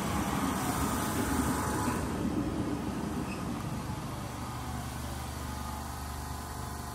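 DART electric commuter train running into the platform and slowing, its wheel and rail rumble easing gradually, with a faint whine in the first two seconds.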